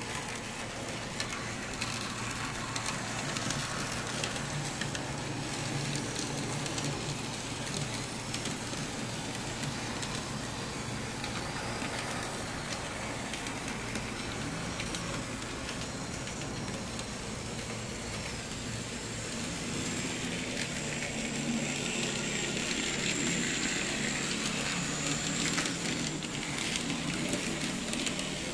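N scale model trams running on the layout's track: a steady noise of small motors and wheels on rail, with many faint clicks. A faint high whine joins in for several seconds past the middle.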